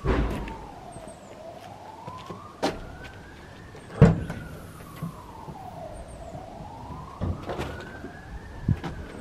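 Emergency vehicle siren wailing, slowly rising and falling in pitch about every five seconds. Over it come hard-soled footsteps on paving and a few sharp knocks, the loudest about four seconds in.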